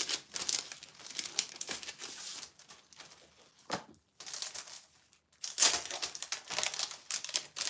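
Crinkly plastic packaging and a Silkscreen stencil sheet rustling as they are handled, in two spells with a pause of a few seconds between them.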